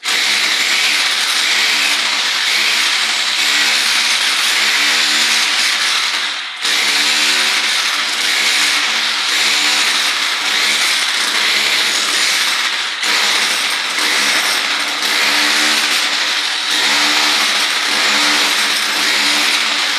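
A loud motor-driven power tool running, with a rhythmic low pulsing, dipping briefly twice.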